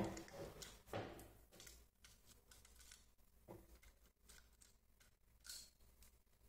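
Near silence with faint clicks and rustles of a small plastic RC car chassis being handled, a few slightly louder clicks scattered through it.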